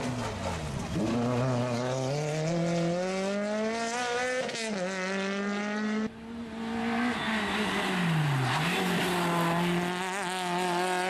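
Peugeot 106 rally car's engine at high revs, the pitch falling and then climbing hard through the gears, with a brief drop at a gear change about four and a half seconds in. A sudden break about six seconds in, then the revs fall again and climb once more near the end.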